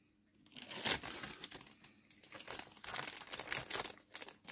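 Plastic bag from a model-kit sprue crinkling and rustling as it is handled, in irregular rustles starting about half a second in.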